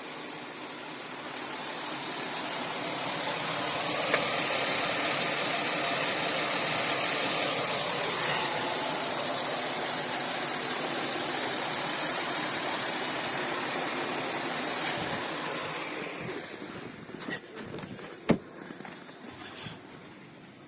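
Nissan VQ20DE 2.0-litre V6 engine running, heard as a steady, hissy engine noise. Near the end it fades and gives way to several clicks, one of them sharp.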